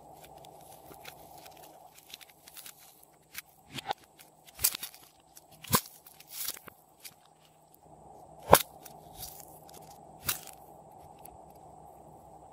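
Hands squeezing and pressing slime and soft clay, some of it in a silicone mold: light crackling with a few sharp pops, the loudest about two-thirds of the way through.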